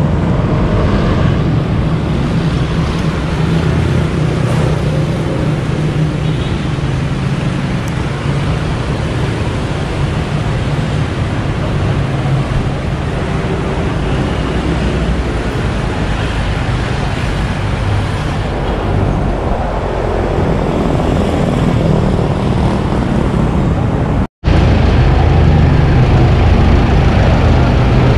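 Motor vehicle engines running at a steady idle with traffic noise, a constant low drone. The sound breaks off completely for an instant near the end, then carries on as before.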